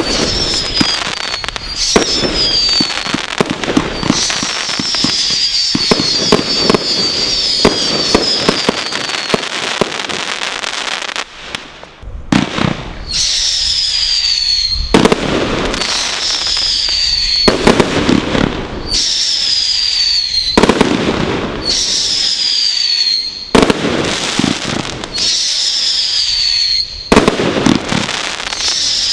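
Brothers 'The God Father' firework barrage cake firing. For the first ten seconds shots and crackling come densely with many whistles falling in pitch. After a short lull, volleys come about every two and a half seconds, each a sharp bang followed by a falling whistle and crackle.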